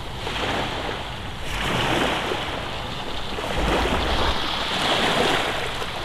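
Small waves washing up on a sandy beach, the surf swelling and easing in repeated washes.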